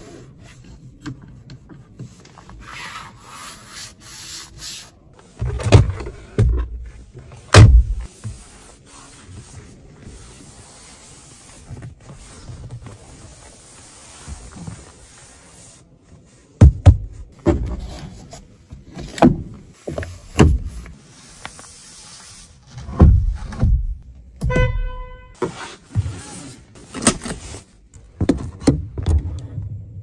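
Hands pressing, patting and rubbing the interior trim of a BYD Seagull (the textured dashboard top and the leatherette seat cushion), making a series of dull thumps and soft rubbing. About three-quarters of the way through comes one short electronic beep.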